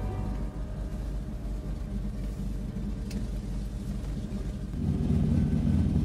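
De Havilland Beaver ski-plane's engine and propeller running, heard from inside the cabin: a steady low rumble that grows louder about five seconds in.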